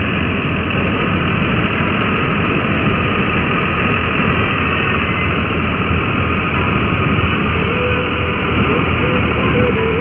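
John Deere tractor's diesel engine running steadily under load, driving a tractor-mounted combine harvester as its reel and cutter bar cut standing rice.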